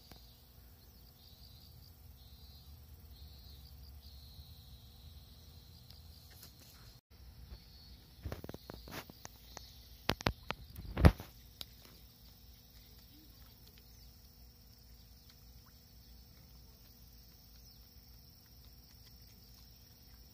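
Insects chirping faintly and steadily in the grass. About halfway through comes a short cluster of sharp knocks and bumps, one of them much louder than the rest.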